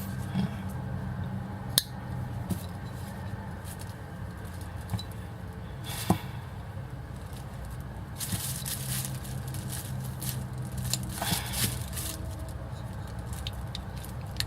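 Folding multi-tool worked by hand: a few sharp clicks as its stiff parts are flicked open and snapped shut, with stretches of rustling handling noise, over a steady low hum.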